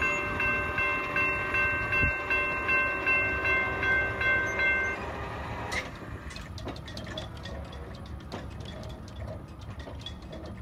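Railroad grade-crossing warning bell ringing about twice a second over the low rumble of a departing Metrolink commuter train. The bell stops about five seconds in as the crossing clears, leaving faint wind on the microphone.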